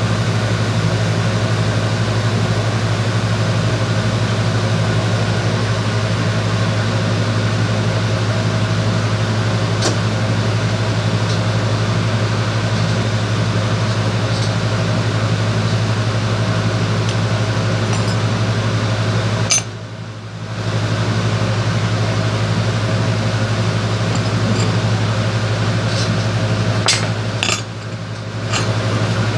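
Steady electrical hum of a welding machine: a strong low drone with overtones. A couple of clicks come with two brief drops in the higher noise, about twenty seconds in and near the end.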